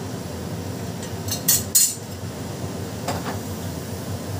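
Kitchen utensils clinking against dishes: a quick run of three sharp clinks about a second and a half in, and a softer one near three seconds. A steady low hum runs underneath.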